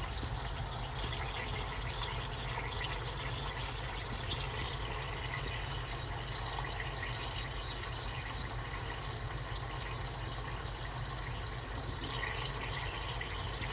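Dry ice sublimating in water: a steady bubbling hiss with scattered faint ticks, over a steady low rumble.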